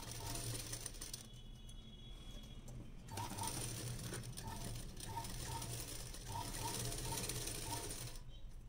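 Household sewing machine stitching through fabric in two spells: a short run at the start, a pause of about two seconds, then a longer run of about five seconds that stops near the end. It is sewing a canvas lining strip onto a blouse back along the neckline.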